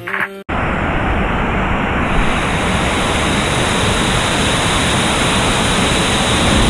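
A hip-hop track cuts off about half a second in. A steady, loud rush of water follows: an artificial waterfall pouring into a pool, heard at the water surface. It turns brighter and hissier about two seconds in.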